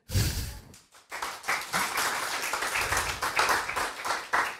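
Audience applauding at the close of a lecture: a short burst of noise at the start, then steady clapping from about a second in, tailing off near the end.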